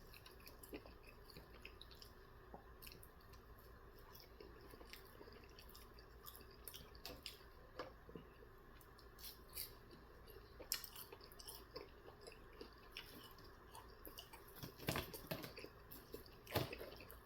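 A person chewing sauced chicken nuggets close to the microphone: quiet, wet mouth clicks and smacks, louder for a moment about 15 s and 16.5 s in.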